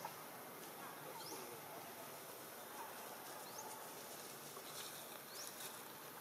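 Faint outdoor ambience: a steady hiss with three short, high, rising chirps about two seconds apart, and faint squeaks lower down.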